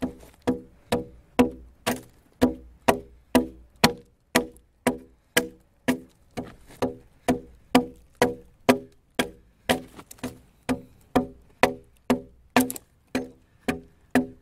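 Axe blows on a timber beam being hewn, an even chopping rhythm of about two strikes a second, each a sharp knock with a brief ringing tail.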